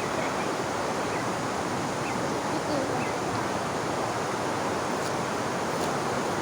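Steady, even rushing outdoor noise.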